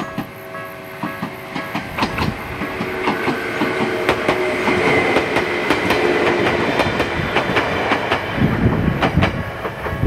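Ueda Electric Railway Bessho Line electric train passing a level crossing, its wheels clicking over the rail joints, growing louder toward the middle of the passage. The crossing's warning bell rings in a steady repeating beat.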